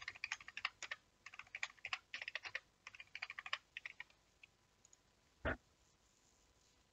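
Typing on a computer keyboard: a quick run of key clicks for about four seconds, then a single louder knock about five and a half seconds in.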